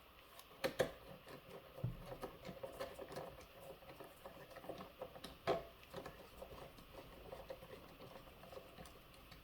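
Small screws and metal parts of an RC loader's track assembly being handled during reassembly: light clicking and rattling, with two sharper clicks, one near the start and one about halfway through.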